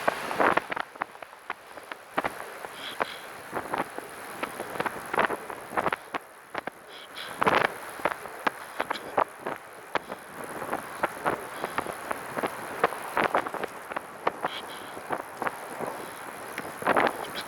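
Catrike 700 recumbent trike rolling along with irregular clicking and rattling at uneven intervals, over wind noise on the microphone. The rattle comes from behind the seat near the rear wheel, and its cause is unknown.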